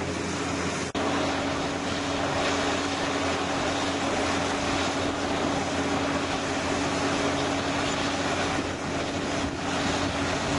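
Crawler bulldozers' diesel engines running steadily under load while pushing soil, a constant low drone with a steady hum. The sound breaks off briefly about a second in.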